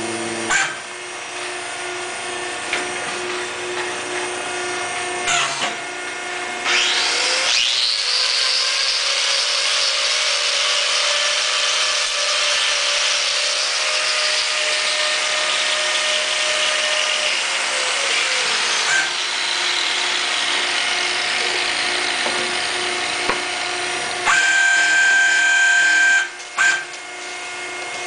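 Handheld electric power tool spinning up with a rising whine, running steadily for about ten seconds and then winding down. A second, shorter loud run comes near the end.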